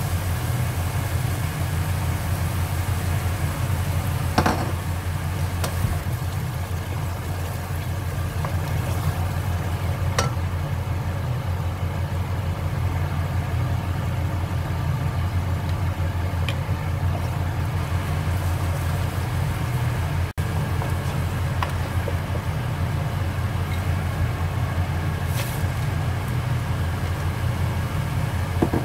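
A steady low hum that does not change, with a few light knocks of a wooden spoon against an aluminium pot while stirring.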